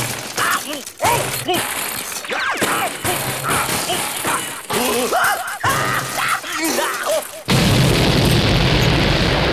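Cartoon sound effects: a run of short swooping, sliding tones, then a sudden loud explosion boom about three-quarters of the way through, with a long rumble.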